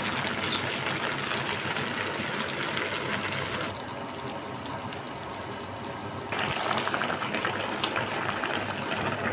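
Food sizzling in a wok: a steady hiss that drops quieter for a few seconds in the middle, then comes back with fine crackling.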